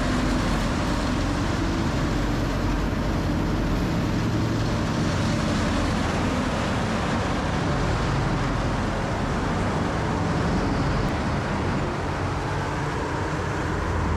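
Rotochopper B66L wood grinder running steadily with heavy diesel machinery, grinding felled pine trees into wood chips.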